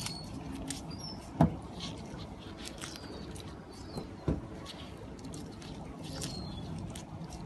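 Gloved hands handling and cleaning small horse mackerel on a hard deck: a run of small clicks and scratches, with two louder knocks, one about a second and a half in and one just past four seconds.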